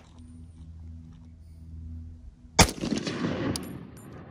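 A single shot from a Zastava M76 rifle in 8mm Mauser about two and a half seconds in, its report echoing and rolling away for more than a second. A short, high metallic ping follows about a second after the shot.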